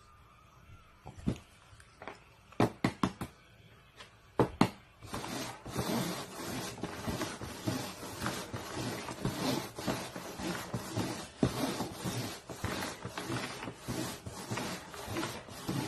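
Paper cups set down and slid around on a cardboard box as they are shuffled. A few sharp taps come in the first seconds, then a busy run of scraping and tapping for the rest.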